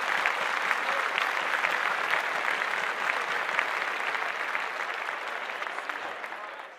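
Applause, many hands clapping in a dense steady patter that fades out near the end.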